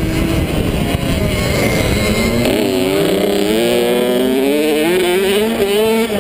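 Small two-stroke motocross engine of a Kawasaki KX65 revving hard under the rider, its pitch rising and falling with the throttle and climbing steadily over the last few seconds. Wind rumbles on the microphone in the first couple of seconds.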